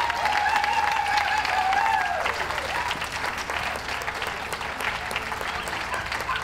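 Audience applauding and clapping throughout, a steady patter of many hands. Over it, a long held high note slides down and stops about two and a half seconds in.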